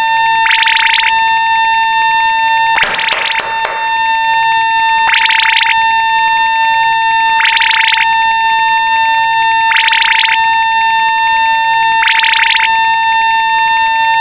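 Electronic sound effects: a loud, steady buzzing tone like a horn or alarm, with a short hissing burst repeating every two seconds or so and a broader burst of noise about three seconds in, all cutting off suddenly at the end.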